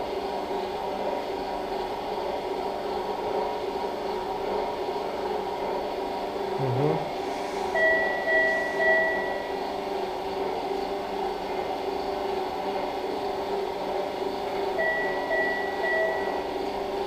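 Steady mechanical hum of operating-room equipment. About halfway through and again near the end come three short electronic beeps, like a device alarm or signal tone.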